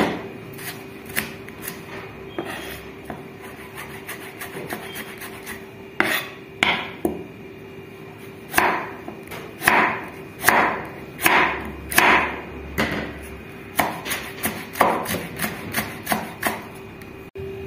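Chef's knife julienning carrot on a cutting board. The blade taps the board in quick light strokes, then makes slower, louder slicing strokes about a second apart, and ends with quick taps again. A faint steady hum runs underneath.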